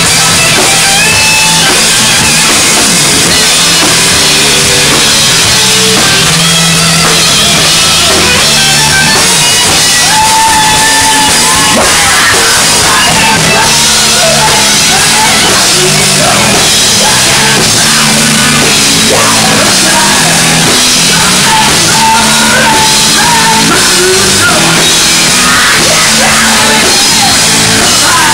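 Live heavy rock band playing loud: distorted electric guitar, bass guitar and a drum kit with cymbals, with a wavering melodic line over the top.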